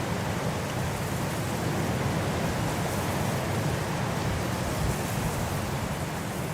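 Steady wind, a continuous deep rushing noise without gusts or breaks.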